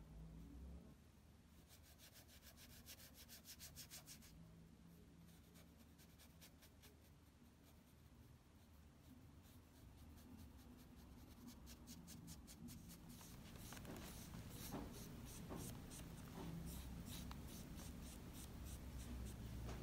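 Faint scratchy strokes of a flat watercolour brush on textured watercolour paper, coming in quick runs of short back-and-forth strokes, busiest in the second half.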